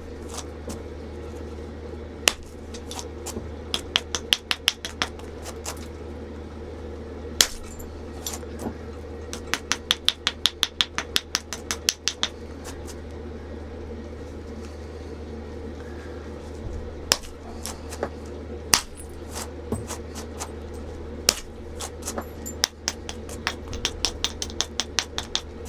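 Flintknapping: a stone blank being struck and flaked, heard as sharp stony clicks, some single and some in quick runs of light taps, while a biface is roughed out and the rind is taken off.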